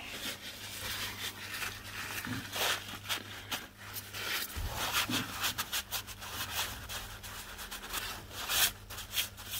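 Rag wiping the crankcase around the oil drain bung of a quad bike, rubbed by a gloved hand in many quick, irregular strokes.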